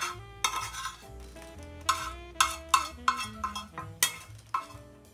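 A metal spoon scraping and knocking against a frying pan as the sautéed vegetables are emptied out, in a run of sharp irregular strikes, some ringing briefly. Background music plays under it.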